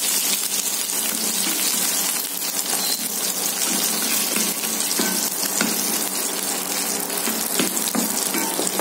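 Hot oil sizzling steadily as dried red chillies, curry leaves and cumin seeds fry in a non-stick pan, stirred with a spatula, with a few light ticks of the spatula against the pan.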